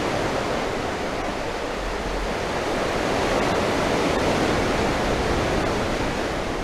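Ocean surf washing in among coastal rocks: a steady rushing of breaking water that swells a little midway and eases near the end.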